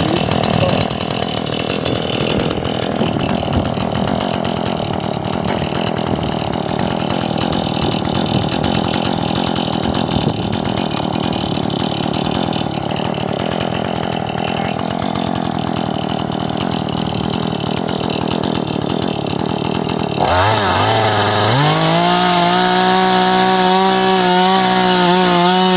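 Two-stroke chainsaw running under load as it saws through a log. About twenty seconds in, the saw comes free of the cut and the engine revs up to a steady high-pitched whine at full throttle, starting to drop just at the end as the throttle is let off.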